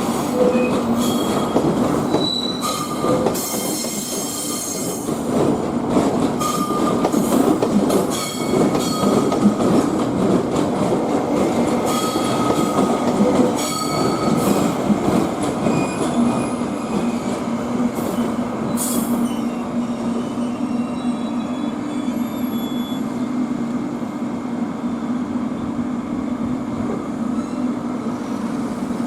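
Electric train moving slowly through the depot's points during shunting: wheels squealing in short high-pitched bursts and knocking over rail joints. From about twenty seconds in, the squealing and knocking die away, leaving a steady low hum.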